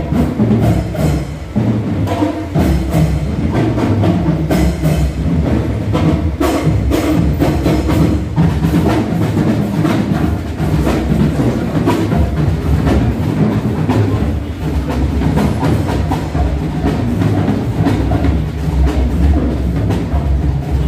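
Marching band playing: brass with sousaphones, over drums keeping a steady beat.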